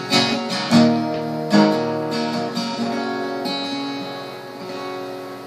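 Acoustic guitar strumming the closing chords of a song: three strums, then the final chord, struck about one and a half seconds in, left to ring and slowly fade.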